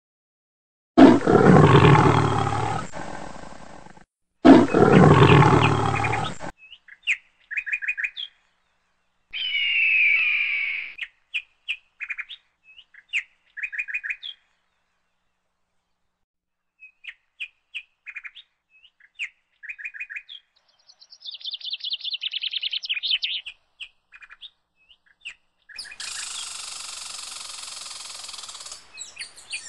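Two loud animal roars, each starting abruptly and fading over a couple of seconds, followed by scattered short bird chirps and calls with a quick trill, then a steady high buzz for about three seconds near the end.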